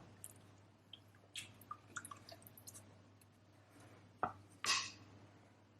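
Faint kitchen handling noises: a few light clicks and taps, a sharper click about four seconds in, then a short soft rustle.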